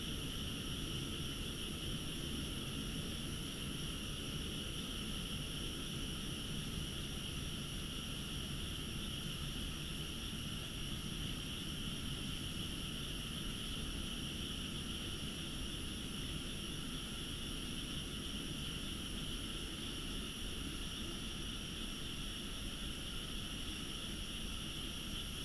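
A dense night chorus of frogs from rice paddies, a steady, even din that does not change, over a faint low rumble of background noise.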